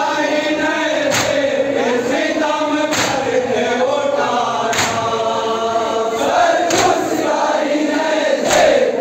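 A group of men chanting an Urdu noha (mourning lament) in unison, led by a man singing loudly into a microphone. Sharp slaps of chest-beating (matam) fall in time with the chant, about every two seconds.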